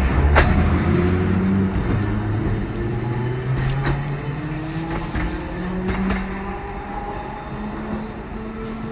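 A vehicle running, its motor drone shifting pitch in steps, with a few sharp clicks along the way.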